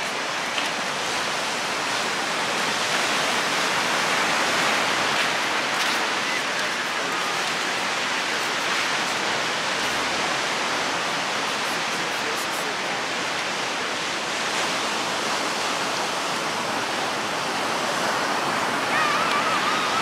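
Pacific surf breaking and washing up the sand: a steady rushing that swells a little a few seconds in and again near the end.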